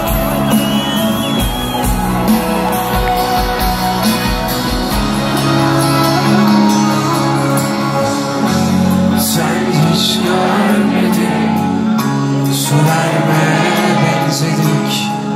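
Live pop-rock band music over a concert PA, heard from within the audience, with held notes and a bass line and drum hits coming in during the second half. Crowd voices and shouts mix in.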